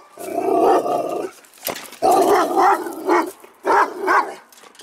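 Guard dog barking loudly behind a gate: two drawn-out runs of barking, then two short, sharp barks near the end.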